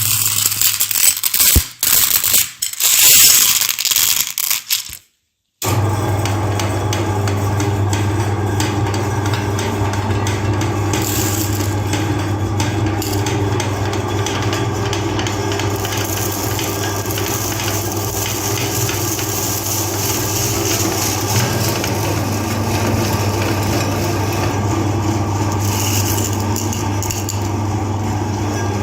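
Hard candy and chocolate clattering and crunching in irregular bursts. After a cut, an electric meat grinder's motor hums steadily while it grinds the chocolate bars.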